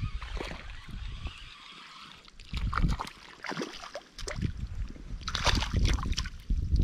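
Water splashing and sloshing in irregular bursts as a large pike thrashes at the surface while being landed.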